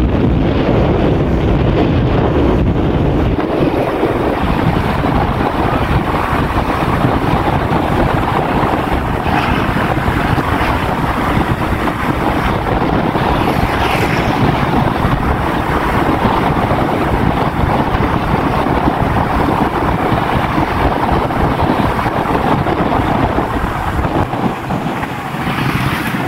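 Steady noise of a moving vehicle, with wind buffeting the microphone.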